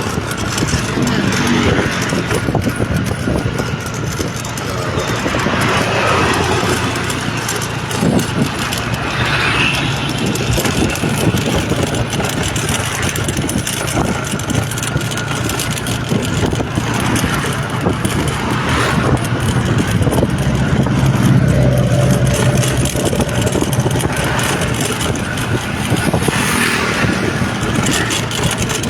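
Motor vehicle engine running with a steady low hum and road noise.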